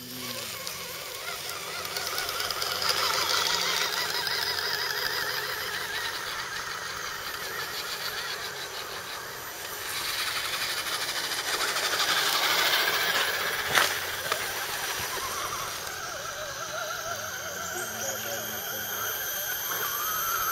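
Electric motors and gear trains of 1:10 scale RC crawler trucks whining in a wavering buzz as they drive, getting louder partway through, with one sharp click about 14 seconds in.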